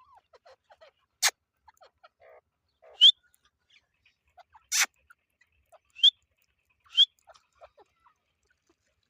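Teetar partridges calling: many soft, short low chirping notes throughout, broken by about six loud, very brief sharp calls, some of them quick upward chirps.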